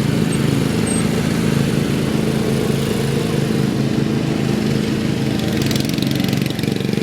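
Lawn mower engine running steadily. A fast, fine ticking joins about six seconds in.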